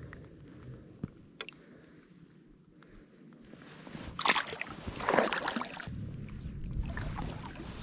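Water sloshing and splashing in two loud bursts, about four and five seconds in, followed by a steady low rumble of wind on the microphone.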